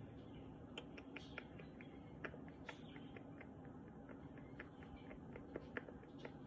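Faint, irregular ticks and scratches, a few a second, from a cloth being rubbed over a rooster's face, comb and feathers.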